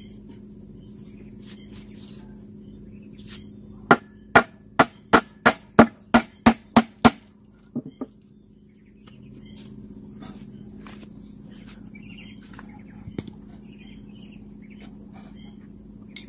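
Hammer driving a nail into a wooden board: about ten quick, loud strikes, roughly three a second, then two lighter taps. Insects chirr steadily in the background.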